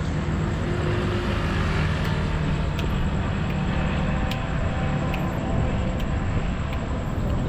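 Light road traffic passing on a wide city avenue: a steady noise of tyres and engines with a low rumble underneath.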